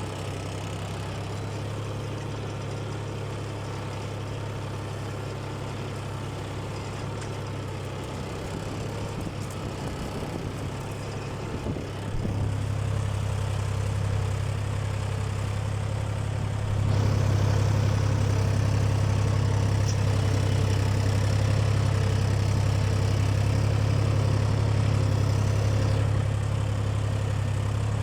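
Solis S50 4WD tractor's diesel engine running steadily while ploughing. It gets louder about twelve seconds in and louder again about seventeen seconds in, when a high hiss joins it until near the end.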